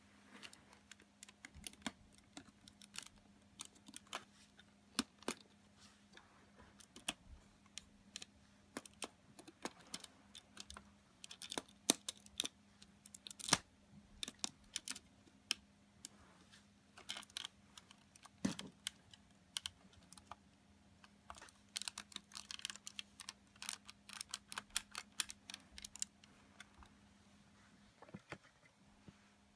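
Lego Technic plastic pieces clicking and snapping as pins and beams are pressed and fitted into place by hand: many irregular sharp clicks, with busy runs about halfway through and again toward the end, over a faint steady hum.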